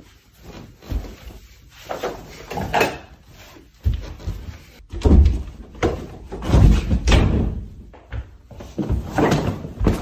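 A series of irregular heavy thuds and slams, people landing on furniture, a bed and the floor during rough horseplay. The loudest come about halfway through and again near the end.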